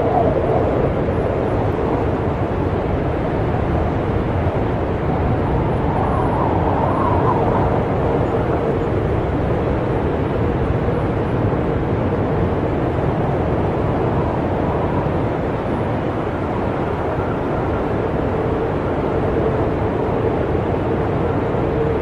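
Snowstorm wind blowing steadily, a dense rushing noise with a low whistling tone that rises briefly about six seconds in.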